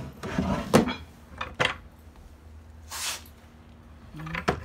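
Wooden butcher-block cabinet being opened and rummaged: its doors and drawer knock and clunk a handful of times, the sharpest knock just under a second in, with a brief scrape of wood about three seconds in.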